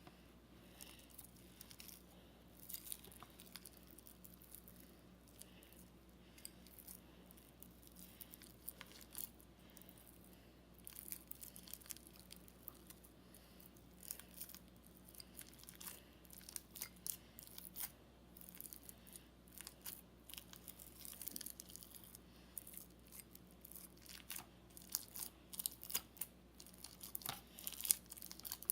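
Crunchy slime full of fishbowl beads being mixed and squeezed by hand: faint, irregular crackles and clicks from the beads, sparse at first and growing busier in the second half.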